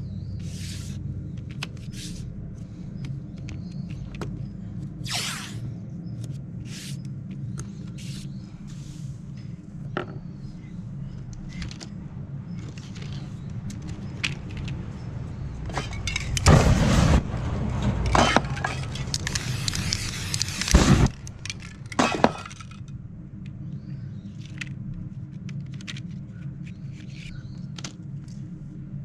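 Aerosol spray paint can hissing in short bursts, with a run of louder, longer sprays a little past the middle. A steady low hum sits underneath.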